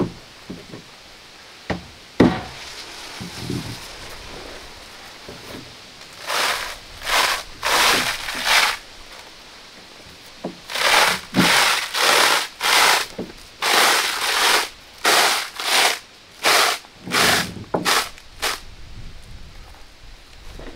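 Hand saw cutting on sawhorses: rasping back-and-forth strokes about one and a half a second, a short run of four, then after a pause a longer run of about a dozen. A few sharp knocks come before the sawing starts.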